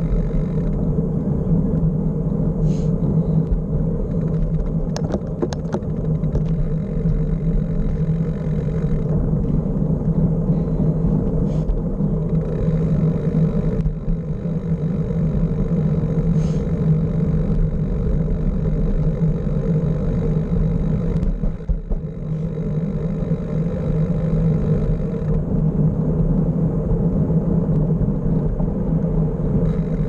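Steady wind and road rumble picked up by a bicycle-mounted camera while riding, with a few brief ticks about five seconds in.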